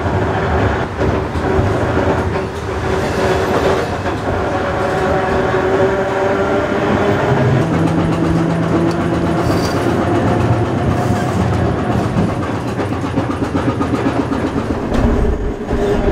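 Ride inside a 1920s Perley A. Thomas 900 Series streetcar under way: the steady rumble and clatter of the car running on its rails, with a constant hum. A lower hum joins for about two seconds midway.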